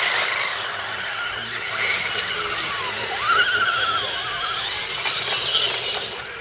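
Electric motors and gear drivetrains of several RC scale crawler trucks whining as they crawl through mud. The pitch rises and falls with the throttle, climbing sharply about halfway through.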